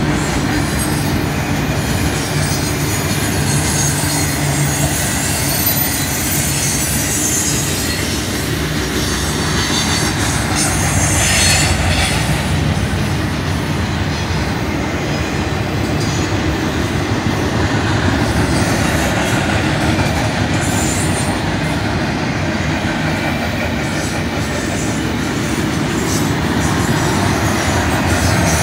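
Double-stack container well cars of a freight train rolling past steadily, steel wheels rumbling on the rails, with a high wheel squeal at times.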